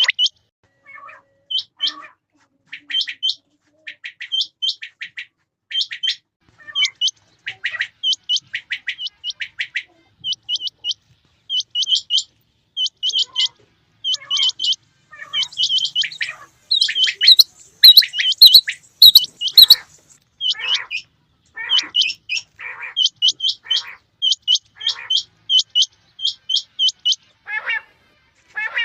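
Quail calling over and over in short, sharp phrases of two or three quick notes, about one phrase a second, louder for a few seconds past the middle.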